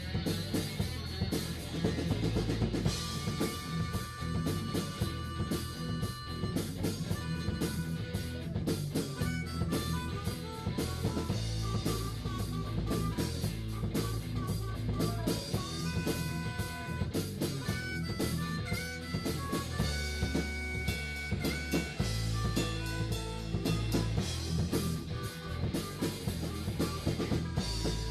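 Live blues-rock band playing: drum kit, bass and electric guitar, with a harmonica playing a melodic line of held and quick notes over them.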